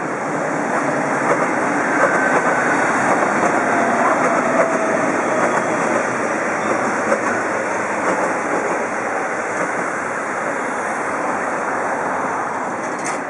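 Commuter electric train passing on an elevated line: steady wheel-on-rail rumble with sharp clicks over the rail joints, loudest a few seconds in as it goes by, then easing off.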